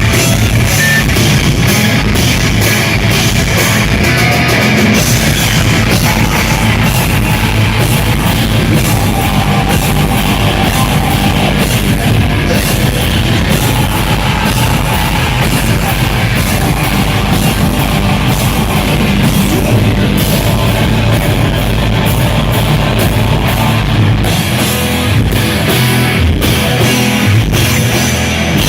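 Live heavy rock band playing: distorted electric guitars, bass and a drum kit at full volume, with some singing.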